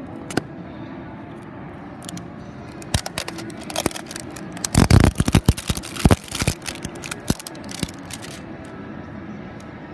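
Handling noise: a cluster of clicks, knocks and rubbing, with the heaviest thumps about five seconds in, over a steady background hum.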